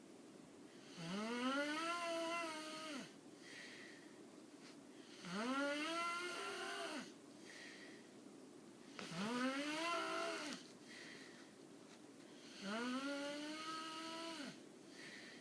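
Snoring: four long snores about four seconds apart. Each is a drawn-out, pitched tone that rises quickly and then holds, with quieter breathy exhales between them.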